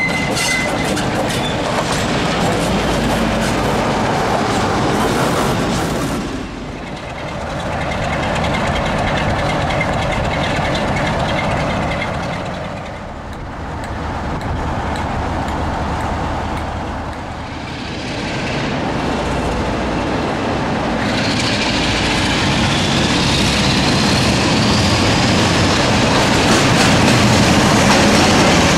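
Class 47 diesel locomotive 47 832 moving along a platform line, its Sulzer twelve-cylinder engine running steadily. About two-thirds of the way through a rising whine comes in, and the sound grows louder as the locomotive passes close by.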